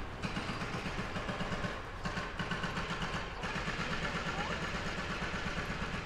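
A vehicle going by, with a rapid, even pulsing and a hiss above it.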